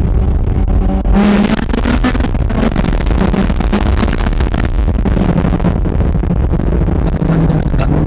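Honda S2000's four-cylinder engine running through a straight-pipe exhaust with a high-flow cat, loud, getting louder and harsher about a second in as the car pulls away.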